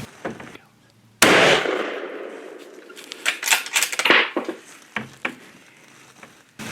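A single rifle shot from a Savage 7mm-08 fired inside a box blind, about a second in, loud and sudden with a decaying tail. A cluster of sharp clicks and knocks follows a couple of seconds later.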